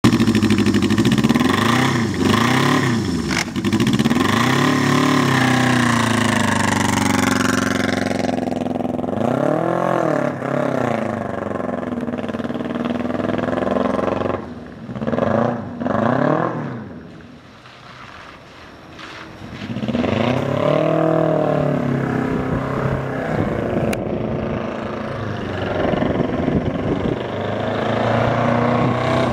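1982 Yamaha XJ1100 Maxim's air-cooled inline-four engine revving several times, then pulling away through the gears. It fades to faint as the bike rides off and grows louder again as it rides back.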